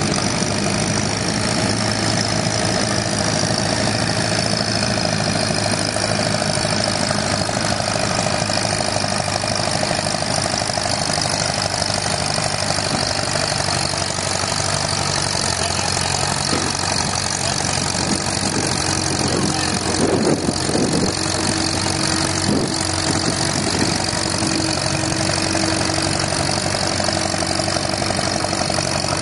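Farmall A tractor's small four-cylinder engine running steadily as it drags a weight-transfer sled, with a few short clanks about twenty seconds in.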